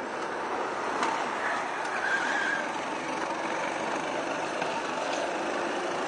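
Go-kart engines running as karts lap the track, a steady droning engine noise. A brief wavering higher sound comes about two seconds in.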